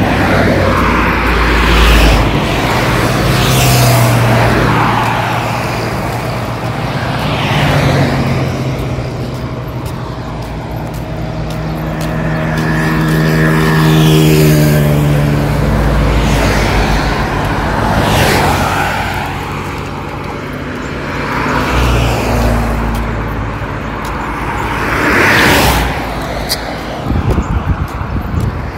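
Road traffic on a multi-lane highway: cars pass one after another, each swelling and fading as it goes by. In the middle, a vehicle with a steady engine hum takes several seconds to pass.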